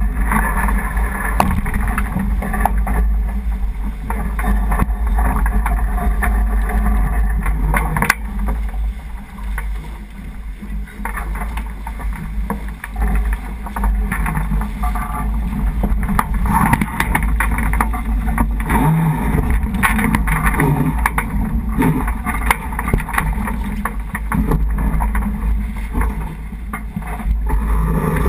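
Wind and water noise on a J80 sailboat under way: a steady low rumble on the microphone and water rushing along the hull. Sailcloth rustles and occasional knocks come from the crew taking in the spinnaker, one sharp knock about 8 seconds in.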